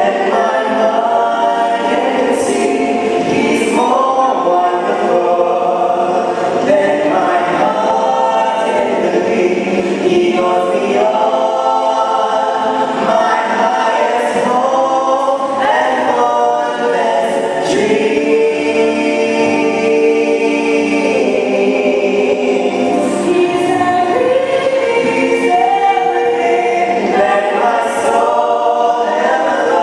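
A choir singing a gospel hymn, several voices together, with some long held notes.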